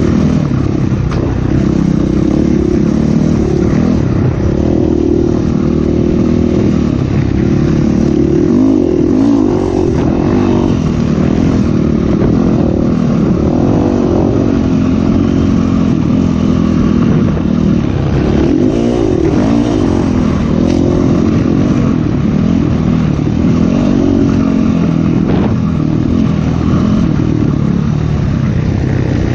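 Dirt bike engine being ridden hard along a sandy trail, its note rising and falling again and again with the throttle and gear changes.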